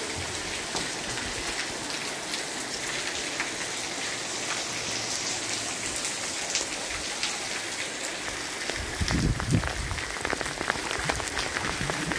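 Steady rain falling on a courtyard, a constant hiss dotted with the ticks of single drops. From about nine seconds in, irregular low thuds join in.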